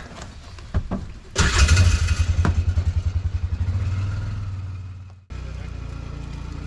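A few clicks, then an engine starts suddenly about a second and a half in and runs with a low throbbing beat, fading until it cuts off abruptly about five seconds in. Background music follows.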